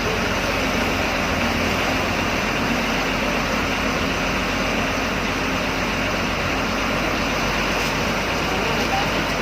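Diesel bus engine running steadily, heard from inside the bus as an even, unbroken drone.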